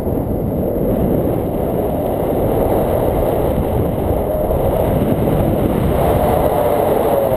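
Wind buffeting the microphone of a selfie-stick camera in paraglider flight: a loud, steady, low rushing noise.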